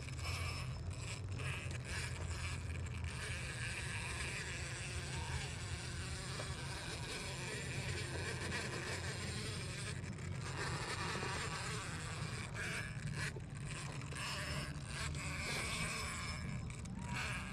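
Brushless electric motor and geared drivetrain of an RC rock bouncer whining in spurts as the throttle is worked, with its tyres crunching over gravel and rock.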